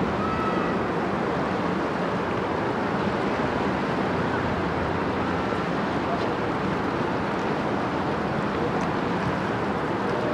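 Steady rushing noise of wind on the microphone and river water.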